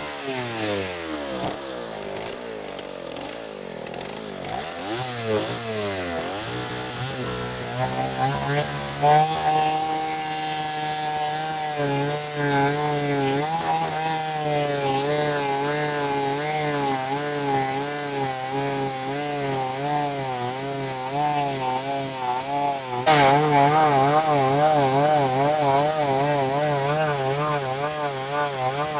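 Two-stroke chainsaw cutting through a log. Its engine pitch drops in the first few seconds, then climbs back and holds high with a wavering pitch under load, getting louder about 23 seconds in.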